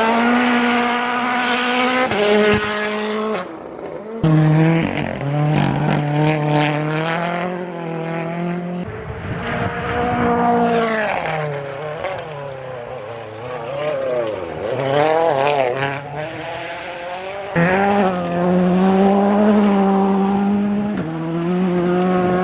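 Rally car engines revving hard, the pitch climbing and dropping as they shift through the gears, several cars one after another with the sound changing abruptly every few seconds.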